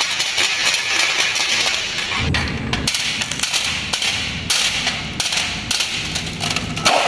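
Marbles rattling down a wooden marble run: a dense stream of clacks and knocks, with a low rolling rumble about two seconds in.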